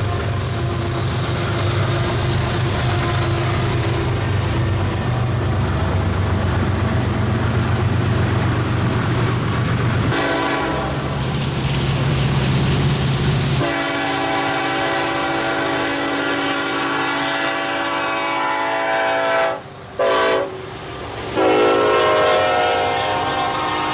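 Diesel freight locomotives rolling past with a steady low engine drone and rail noise. Then a Union Pacific locomotive's horn sounds long blasts, a chord of several tones, breaking off twice briefly near the end.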